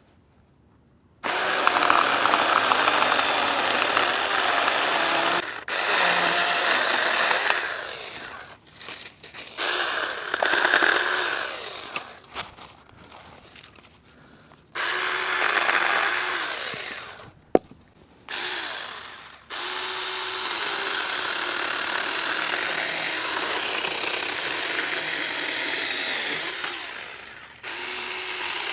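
Saker 20-volt mini cordless electric chainsaw with a 4-inch bar, cutting through a small log. It runs in several bursts of a few seconds each, stopping and starting, then settles into a longer steady run.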